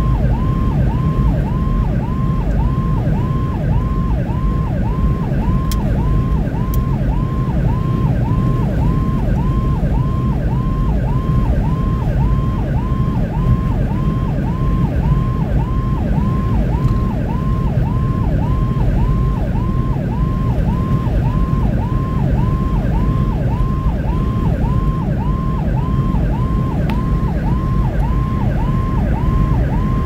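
Electronic emergency siren in a fast yelp, rising and falling about twice a second, heard from inside the cab of a vehicle on an emergency response. Under it runs a steady rumble of engine and tyres on the road.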